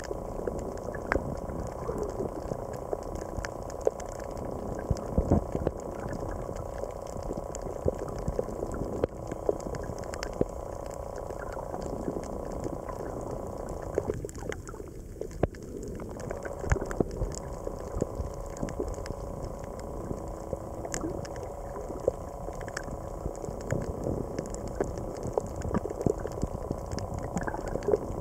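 Underwater reef ambience picked up by a submerged camera: a steady wash of water noise with constant irregular crackling clicks and a faint steady hum.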